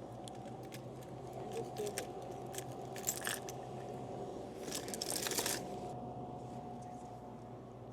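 Packaged snacks being handled while a vending machine is stocked: scattered light clicks and plastic wrappers crinkling, briefly about three seconds in and longer around five seconds. A steady faint hum runs underneath.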